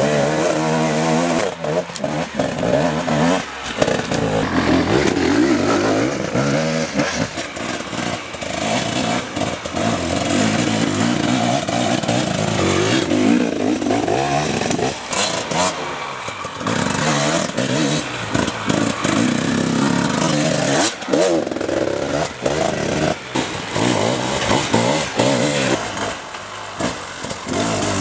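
Enduro dirt bike engines revving up and down over and over as riders work the throttle over rocky trail, pitch rising and dropping with each burst.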